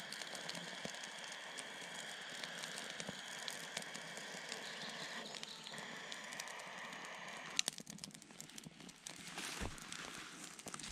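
Pocket blowtorch lighter hissing steadily as its jet flame lights birch bark and twigs in a small metal twig stove. The hiss stops about seven and a half seconds in with a click, and the kindling crackles as it catches.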